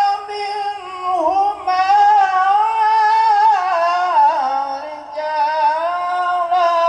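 A man's voice over a microphone and PA chanting Quranic recitation: long, held, wavering notes with ornamented turns, a short break about five seconds in, then another long held note.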